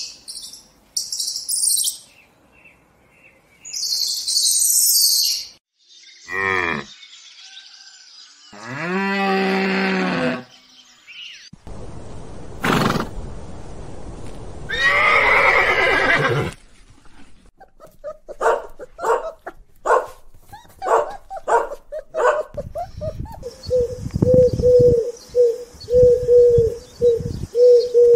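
A string of different animal calls one after another: high chirps, then several long calls with a clear pitch, then a run of short quick calls, ending in a fast pulsing call over a steady tone.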